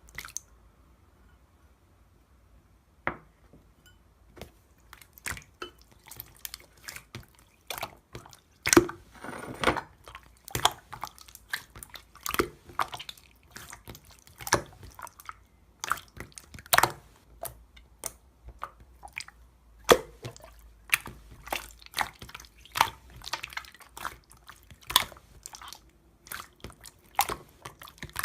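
Slime being pressed and stretched by hand, making irregular wet clicks and pops, a few each second, starting about three seconds in.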